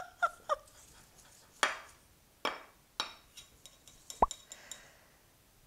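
A silicone spatula stirring cookie dough in a stainless steel mixing bowl: two ringing clinks against the bowl at the start, then a few scraping strokes and light knocks.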